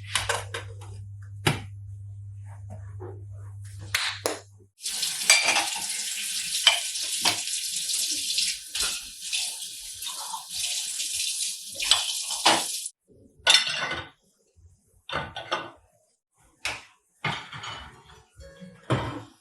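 Kitchen tap running into a sink for about eight seconds, with dishes and cutlery clattering around it. Before the water, a low steady hum cuts off about four seconds in, and scattered clinks of dishes follow.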